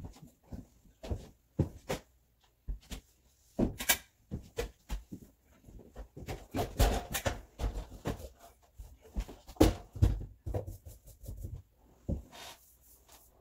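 Irregular knocks, clunks and clatter from hands-on work on kitchen cabinets, a stepladder and a paint can, with the loudest bumps about four, seven and nine and a half seconds in.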